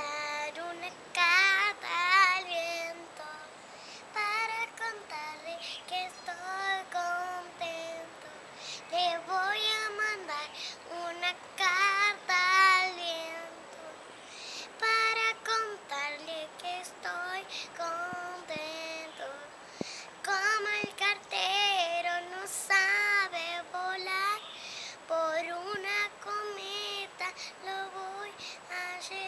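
A young girl singing unaccompanied, in phrases of held notes with a wavering pitch.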